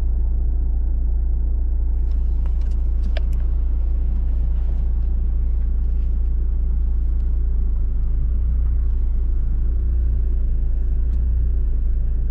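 Car engine running steadily: a loud, even low rumble, with a few faint clicks about two to three seconds in.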